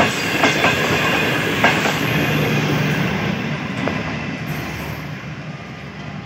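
Millat Express passenger coaches rolling past on the track, wheels clicking over the rail joints. The clicks thin out and the rolling sound fades as the last coach draws away.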